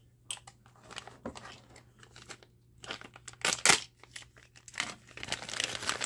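Clear plastic bag crinkling and rustling as the boring head wrapped in it is handled and pulled out of its plastic case, in irregular crackles with a loud crackle in the middle and a denser rustle near the end.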